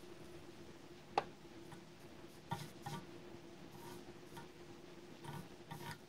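Light clicks and taps of soldering tools working on a circuit board, over a faint steady hum. One sharp click comes about a second in, then a few small clusters of softer ticks.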